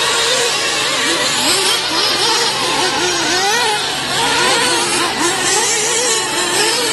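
Several 1/8-scale RC truggies' small nitro glow-fuel engines buzzing at high pitch, each rising and falling in pitch again and again as the cars accelerate and brake around the track.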